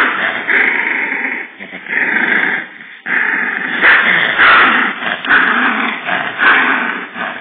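Yorkshire terrier growling in long stretches while tugging and shaking a tissue gripped in its mouth in a tug-of-war, with short breaks about one and a half and three seconds in.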